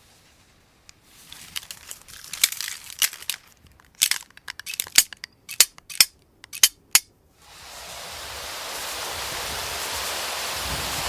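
AI-generated sound effects: a run of irregular sharp clicks and crackles for several seconds, then about seven seconds in a steady rushing hiss starts and holds.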